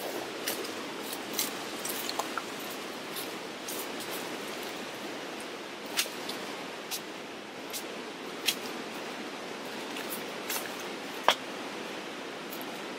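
Machete chopping at a young bamboo shoot: a few separate sharp chops, the clearest near 6 s and 8.5 s and the loudest just past 11 s, over a steady hiss-like background.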